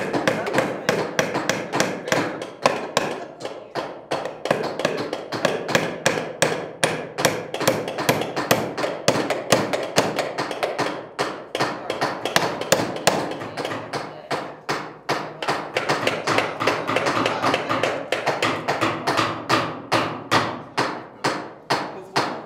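Several hammers driving nails into small wooden birdhouse kits at once. The blows overlap unevenly, several a second, without a break.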